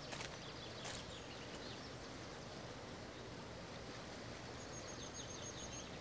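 Steady rush of a fast, shallow river running over rocks, with small birds chirping twice, the second time as a quick trill near the end. A couple of short clicks or rustles in the first second.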